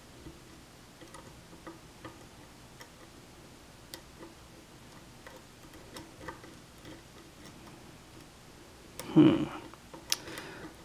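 Faint, irregular light ticks and clicks of a steel hook pick probing and lifting the pins of a Bobby Keyz Thunderstruck challenge lock cylinder held under tension. About nine seconds in, a short louder burst of voice.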